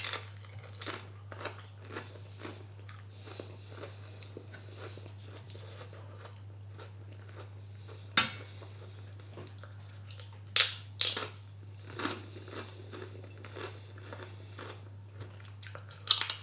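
A person chewing a curry meal, with a few sharp clicks scattered through, over a steady low hum.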